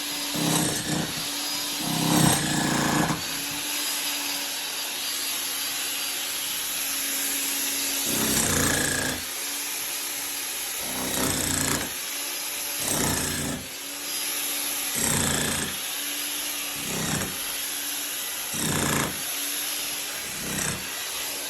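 Hand work with a tool: short scraping or rubbing strokes repeat every one to three seconds over a steady hum.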